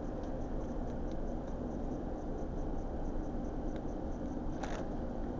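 Steady dining-room background noise, with small crinkles as a plastic condiment packet is torn open and squeezed, and a short sharp rustle about four and a half seconds in.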